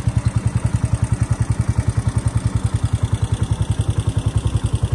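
Wooden tour boat's engine running steadily under way, a low, fast, even pulsing.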